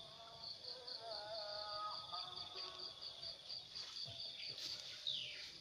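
Insects trilling steadily in the bankside vegetation: a high continuous buzz with a rapid pulsing chirp above it, about six or seven pulses a second. A short falling whistle sounds about five seconds in.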